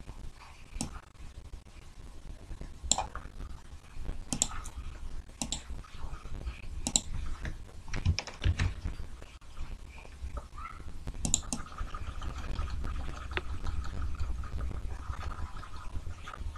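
Irregular clicking and tapping of a computer keyboard and mouse, a sharp click every second or so, over a low steady hum.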